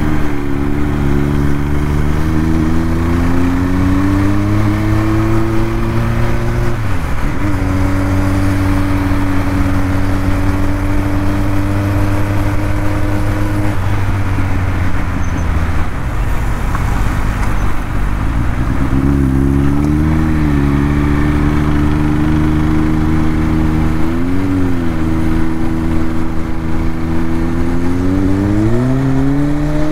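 Kawasaki Ninja 1000SX inline-four engine under way. Its pitch climbs under acceleration at first, dips sharply and recovers about seven seconds in, then holds steady while cruising. It falls away for a few seconds with the throttle eased, rises and wavers twice, and climbs again near the end.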